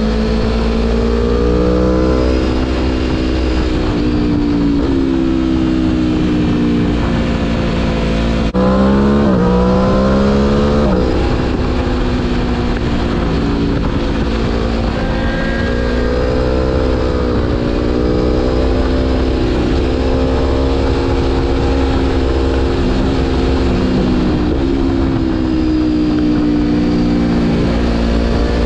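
Aprilia Tuono V4 Factory's V4 engine under way on a ride, the revs climbing and dropping again and again as the throttle is rolled on and off and the gears are changed. Just after eight seconds the revs climb steeply for a couple of seconds. A steady wind rush runs underneath.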